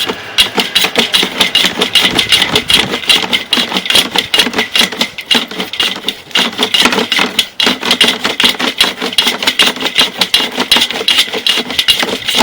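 Rapid mechanical rattling and clicking, several clicks a second without let-up, from a sewer inspection camera's push-rod reel as the camera cable is fed down the rain drain pipe.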